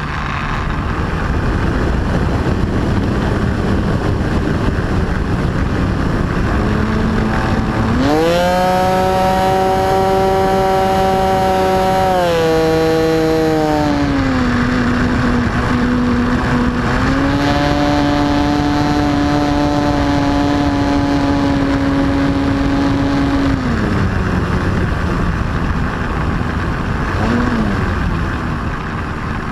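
RC plane's motor and propeller heard from on board, with a rush of air on the microphone. The pitch climbs sharply about eight seconds in as the throttle opens, dips twice, rises again, then falls back about twenty-four seconds in as the plane throttles down to land.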